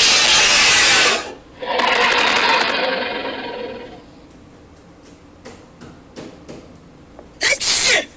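A sound-effect clip played back by a talking-pet phone app. It opens with a loud, harsh burst of noise about a second long, then a second noisy sound that fades out over about two seconds, a few faint clicks, and a short loud burst near the end.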